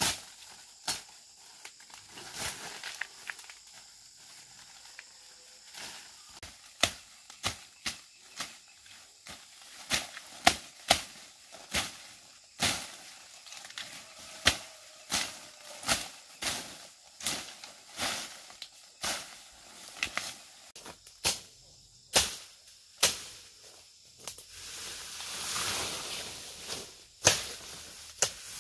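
Weeds being pulled and snapped by hand among pineapple plants: a run of sharp snaps and rustles, roughly one a second. Near the end comes a longer stretch of rustling leaves.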